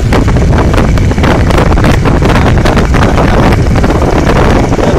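Loud wind rush on the microphone of a camera carried on a moving vehicle, continuous and gusty with rapid crackling, over road and vehicle noise.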